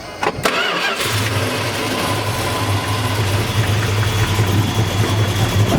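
A 1972 Dodge Demon's 340 V8, fitted with ceramic-coated headers and a 2.5-inch stainless exhaust, cranks briefly on the starter and catches about a second in. It then settles into a steady idle.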